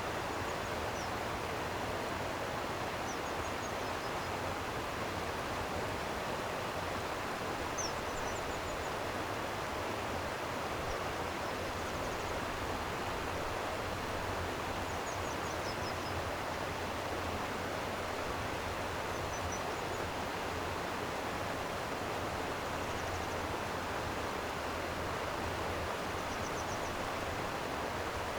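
Steady rushing of flowing stream water, an even wash that does not change, with faint short high chirps now and then.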